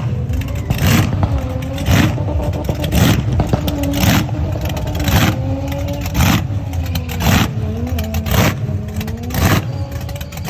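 Supercharged 1000-plus-horsepower car engine being revved, rising in a short, loud surge about once a second over a steady rumble.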